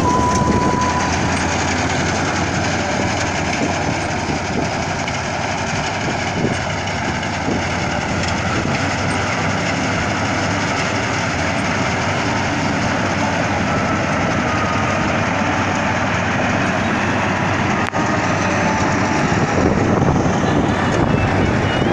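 Rice combine harvester running steadily under load, a dense mechanical din of engine and working machinery, with a brief break about eighteen seconds in.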